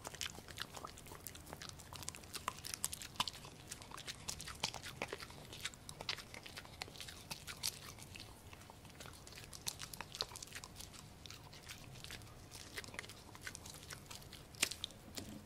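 A Pomsky puppy chewing and crunching a piece of pork: close, irregular crunchy clicks, several a second, with a few louder bites.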